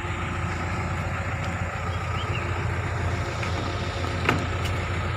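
Excavator diesel engine running steadily, with a short knock about four seconds in.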